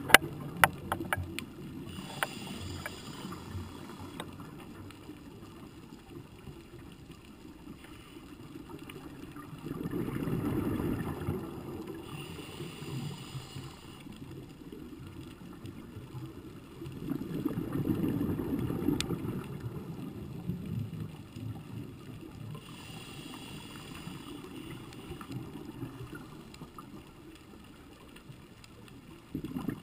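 A scuba diver's regulator breathing underwater, heard through a camera housing: slow breaths several seconds apart, each a hissing inhale and a low bubbling rumble of exhaled bubbles. A few sharp clicks right at the start.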